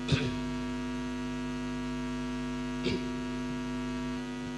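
Steady electrical mains hum, a low buzz with many overtones, in the lecture's sound system. Two brief vocal sounds from the speaker break in near the start and about three seconds in.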